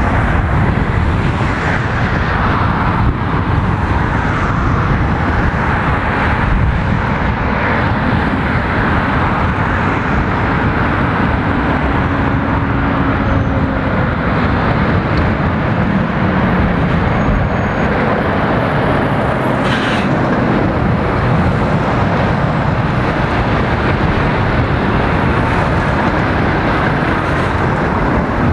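Steady road traffic passing close by: cars, vans and articulated lorries, a continuous wash of tyre and engine noise.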